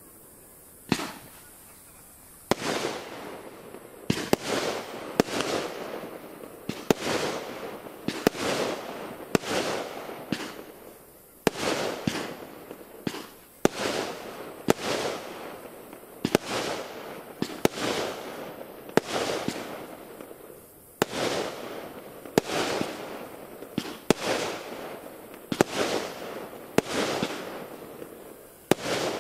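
Aerial fireworks shells bursting one after another, a single bang about a second in and then a steady run of more than a dozen, roughly one every second or so. Each sharp bang trails off over about a second.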